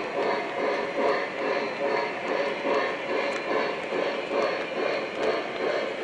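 O scale model steam locomotive's onboard sound system chuffing at a steady rhythm, about two chuffs a second, over the rolling rumble of freight-car wheels on three-rail track.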